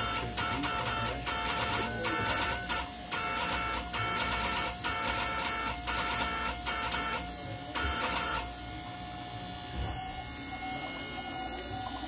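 Morse code (CW) being sent on the ship's WWII radio station: a buzzy tone keyed on and off in short and long elements. It stops about eight and a half seconds in, leaving a steady hum.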